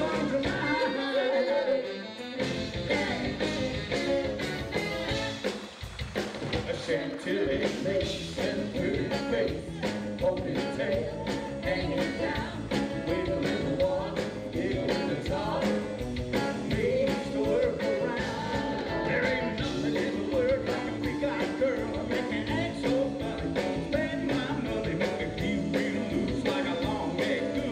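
Live rock and roll band playing with a male lead singer over a steady drum beat, dipping briefly about two seconds in.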